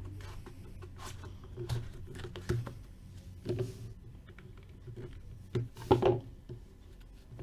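Handling noises: scattered clicks and rustles of trading-card packaging and cards being handled on a table, a few louder knocks near the middle and end, over a low steady hum.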